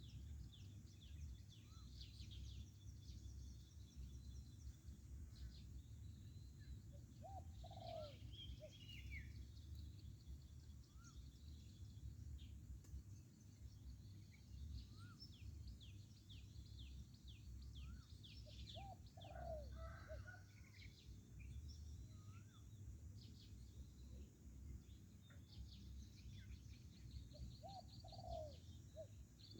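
Male spotted dove cooing three times, each a short low phrase about ten seconds apart, while small birds chirp rapidly throughout.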